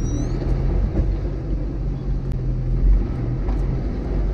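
Vehicle engine and road noise heard from inside the cab while driving slowly: a steady low hum and rumble.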